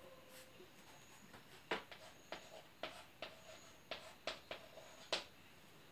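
Chalk writing on a blackboard: about a dozen short, sharp taps and scratches at an uneven pace as letters are written, starting about a second and a half in.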